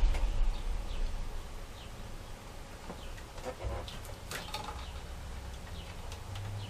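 Small scattered clicks, ticks and handling knocks of a Phillips screwdriver driving tiny screws into a laptop screen's mounting frame, with a low bump at the start.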